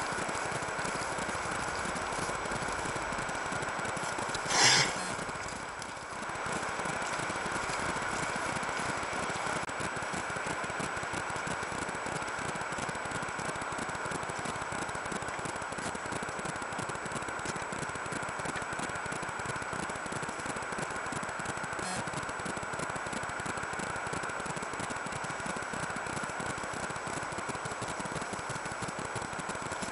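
Steady electronic hiss and hum from a trail camera's own audio circuitry, with a constant tone-like band running through it; the camera's audio is known to be faulty. About five seconds in, a brief louder rustle or bump.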